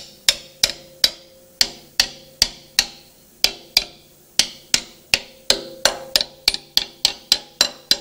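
Hammer tapping the steel crank tone ring of a DT-466E diesel engine onto the crankshaft, driving the interference-fit ring into place. A steady run of sharp taps, about two or three a second and quickening in the second half, each leaving a brief metallic ring.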